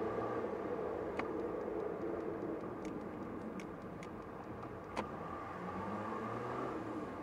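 A car's engine and road noise heard from inside the cabin as it drives slowly and turns in, its low hum shifting in pitch. A run of light ticks sounds in the middle, with sharper knocks about a second in and about five seconds in.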